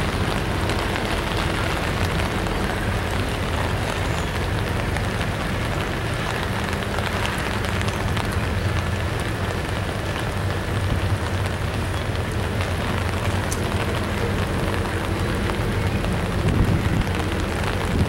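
Double-stack intermodal freight train rolling slowly across a steel girder bridge: a steady rumble and hiss of wheels on rail, with a few louder bumps near the end.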